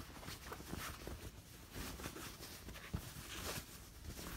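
Faint rustling of fabric being handled as a sewn pillow cover is turned right side out, with a few soft taps.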